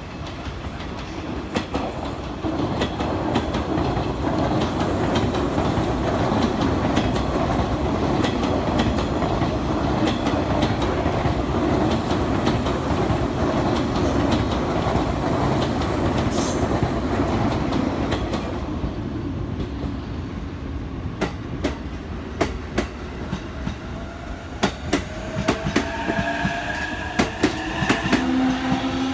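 Electric train running along the platform tracks: a loud rumbling rush with wheels clacking over rail joints, thinning into separate clicks as it moves off. Near the end, a rising electric motor whine sets in as a train pulls away.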